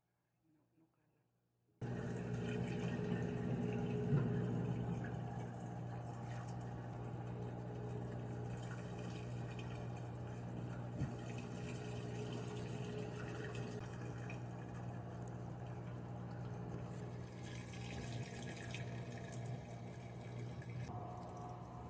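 Running water, starting abruptly about two seconds in and going on steadily, with a low hum underneath.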